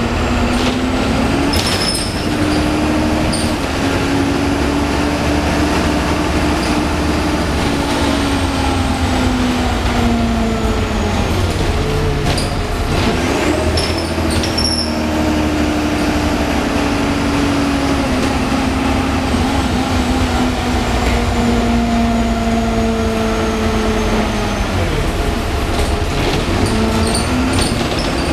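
Optare Solo single-deck bus driving, heard from inside the passenger saloon: its Cummins ISBe diesel engine and Allison automatic gearbox over a steady low rumble. The engine note rises and falls slowly and dips sharply twice. A few sharp clicks and rattles come now and then.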